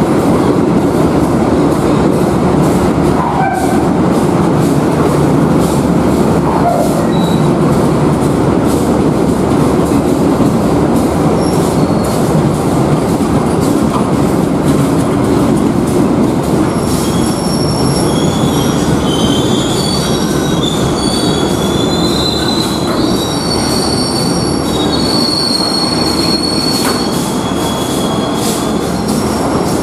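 Passenger train rolling into the station: a steady heavy rumble of wheels and carriages. From a little past halfway, several high-pitched wheel and brake squeals come in and overlap as it brakes.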